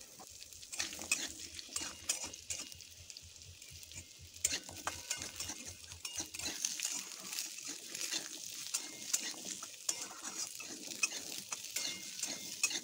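Diced raw potatoes sizzling as they fry in hot oil in a steel kadai, with a steel spatula scraping and clinking against the pan as they are stirred.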